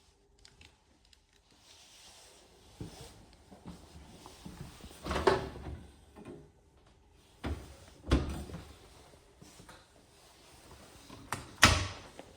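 Kitchen cupboard doors and drawers being opened and shut: a series of separate knocks and bangs, the loudest about five seconds in and near the end.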